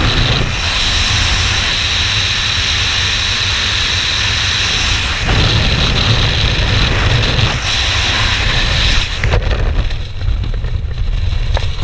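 Freefall wind rushing loudly over the microphone of a skydiver's first-person camera. About nine seconds in, as the parachute deploys, the rushing suddenly drops away, leaving quieter, gusty wind noise.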